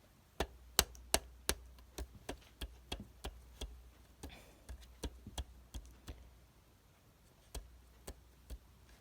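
A series of about twenty sharp clicks or taps, irregular, two or three a second at first and fewer and further apart near the end.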